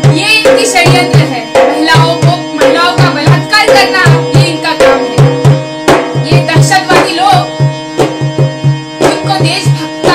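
A woman singing a song to harmonium accompaniment, with a hand drum beating a steady rhythm under the held harmonium notes.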